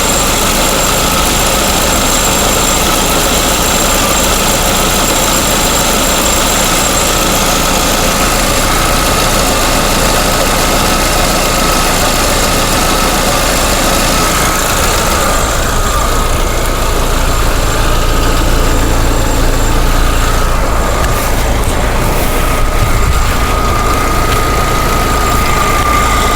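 Lada Vesta's 1.6-litre four-cylinder engine idling steadily, with the tapping of failing hydraulic valve lifters. The higher part of the sound becomes fainter about halfway through.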